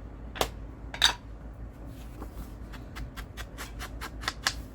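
Light clicks and knocks of craft supplies being handled on a tabletop, with two sharper knocks about half a second and a second in. Near the end comes a run of quick small taps.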